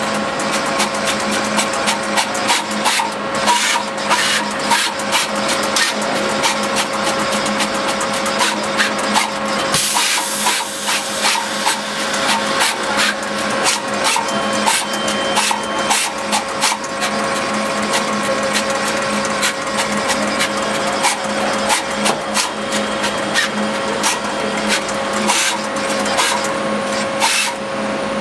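Flying probe PCB tester running: its motors hum and whine steadily while the probe heads move fast over the board, with rapid, irregular clicks and taps as they shuttle and touch down.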